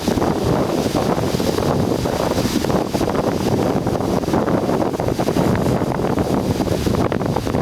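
Strong wind buffeting the microphone in a steady, loud rumble, with heavy surf on the rocks beneath it.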